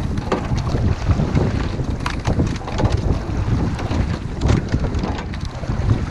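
Wind buffeting the microphone on a rowing boat: a constant low rumble, broken by a few sharp clicks or knocks.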